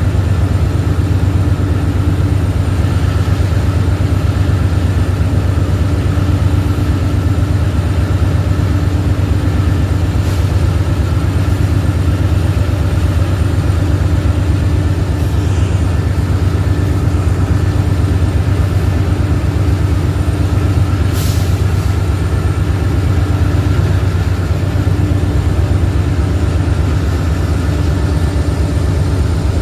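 Several diesel-electric freight locomotives running together: a loud, steady, deep engine drone with a few steady higher tones over it.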